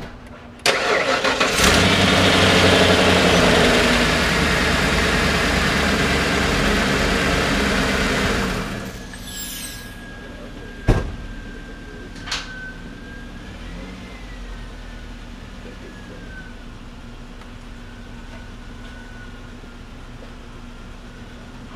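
Ford 5.8 L (351 Windsor) V8 cranked by the starter for about a second and catching, running loud for several seconds, then settling to a much quieter steady idle: the engine started after its oil change. Two sharp clicks come a little after it settles.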